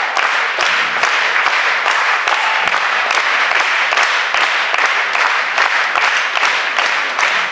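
Audience applauding, a steady dense clapping with no break.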